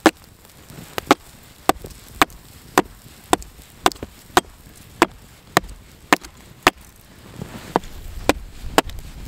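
Hatchet blows chopping into a log, about two sharp strikes a second with a short pause about seven seconds in, shaving a flat face along the wood.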